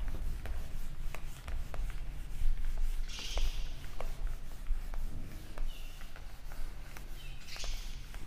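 Whiteboard duster rubbing across a whiteboard in wiping strokes, with a hiss about three seconds in and again near the end, and scattered light taps and knocks against the board.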